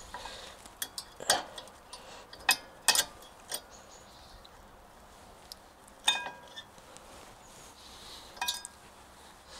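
Small metal parts clicking and clinking as brake pads, their springs and retaining clips are handled and fitted on a rear brake caliper. There are scattered light clicks, with a couple of short ringing metallic clinks about six and eight and a half seconds in.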